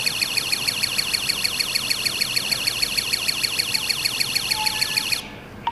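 Wi-Fi water leak detector's built-in buzzer sounding its flood alarm, a loud, high-pitched electronic beep pulsing rapidly and evenly, signalling that water has been detected. It cuts off suddenly about five seconds in.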